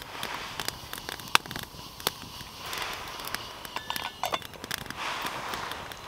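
Wood fire crackling and popping in a small steel bushcraft stove, with sharp cracks scattered through and one loud pop about a second in. A brief metallic clink of the metal pot's lid comes about four seconds in.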